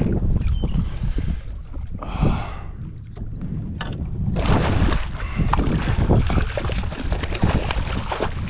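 Wind buffeting the microphone, with a run of small splashes, knocks and crackles starting about four seconds in.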